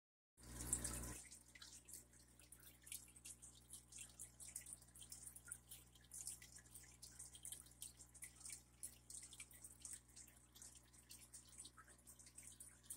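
Faint aquarium water sounds: small irregular drips and pops of bubbles over a low steady hum. A brief rush of noise comes just after the start.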